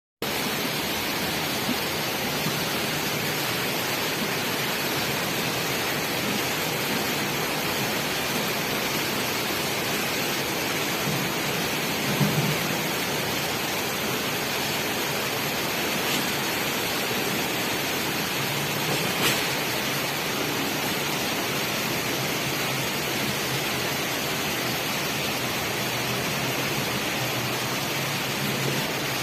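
Heavy typhoon rain falling in a steady, even hiss. Two brief louder sounds stand out, one about a third of the way through and a sharp click about two-thirds through.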